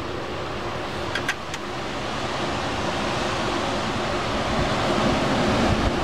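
Strong, gusty wind rushing through the trees, with wind buffeting the microphone. It grows steadily louder toward the end.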